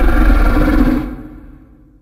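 Dragon roar sound effect, loud for about a second and then fading away.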